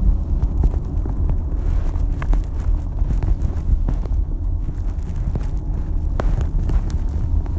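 Steady low rumble of a moving taxi heard from inside the cabin: road and engine noise, with scattered small clicks and knocks.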